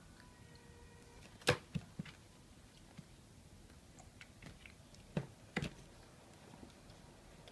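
A few sharp clicks and knocks of handling around a baby's plastic feeding-seat tray during fork-feeding. The loudest comes about one and a half seconds in and is followed by two lighter ones, and a second pair of clicks comes a little past the five-second mark.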